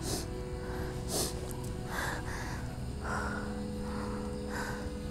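A woman breathing audibly: about five short breaths spaced roughly a second apart, over a faint steady hum.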